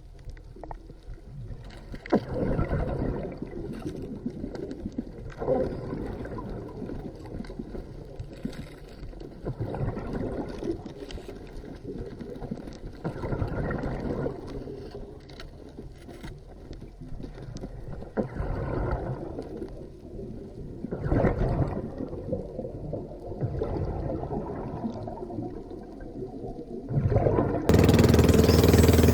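Underwater sound of a diver breathing out, bubbles gurgling in swells every three to five seconds over a muffled background. Near the end it jumps suddenly to a much louder, steady engine-like hum.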